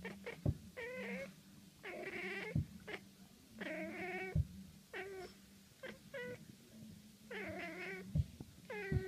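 Domestic cat making odd chirping, warbling calls: about four drawn-out wavering calls, each under a second, mixed with short chirps, the excited sound a cat makes when watching birds through a window. Several dull low knocks fall between the calls.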